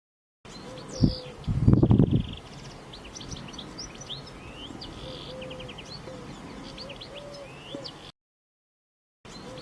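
Small birds chirping, with a low repeated note from another bird every second or so. About a second in there is a thump, then a brief loud low rumble, the loudest sound here. The sound cuts out completely at the very start and again for about a second near the end.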